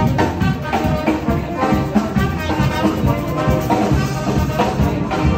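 Brass band with drum kit playing an upbeat tune live: sousaphone, saxophones and trumpets over a steady drum beat.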